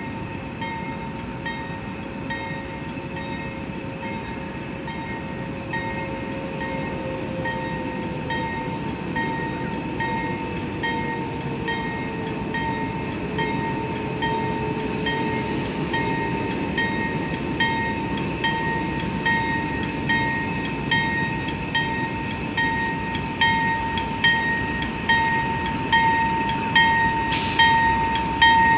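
Grade-crossing signal bell ringing steadily, about two strokes a second, as a Norfolk Southern Dash 9-40C diesel locomotive approaches at low speed leading a freight train. The locomotive's engine rumble grows louder, and there is a brief hiss near the end.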